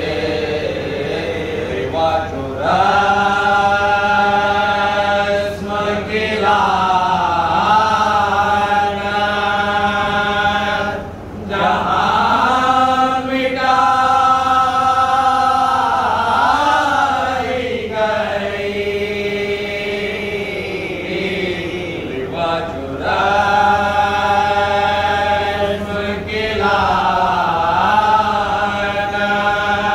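A group of men chanting a devotional ziyarat recitation together, following a lead reciter, in long held melodic phrases that break for breath every few seconds.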